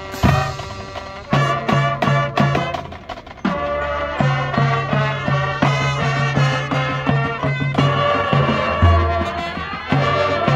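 High school marching band playing: brass with sustained low notes, punctuated by many sharp drum hits.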